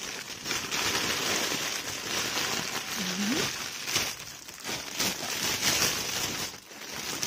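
Plastic packaging crinkling and rustling: a black plastic courier mailer being handled and a garment in a clear plastic bag being pulled out and turned over in the hands.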